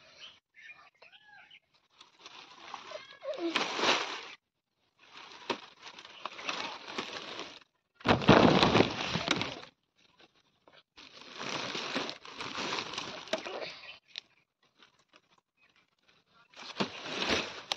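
Plastic sheeting rustling and crinkling in several spells of one to three seconds, with short silences between, loudest about eight seconds in.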